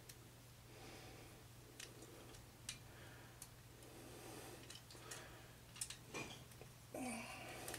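Faint, scattered clicks of the hard plastic parts of a Transformers Studio Series Leadfoot action figure being worked through its transformation, with soft breathy noise every few seconds.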